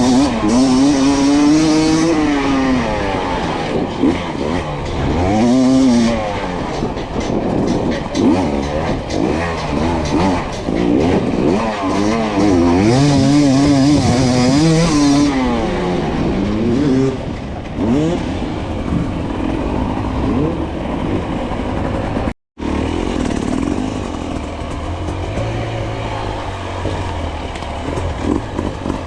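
Two-stroke enduro motorcycle engine revving up and down again and again as the bike is ridden over rough terrain. The sound drops out for an instant about 22 seconds in.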